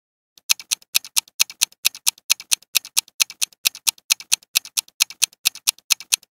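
Countdown-timer ticking sound effect: fast, sharp clock ticks at about four a second, stopping abruptly at the end of the answer time.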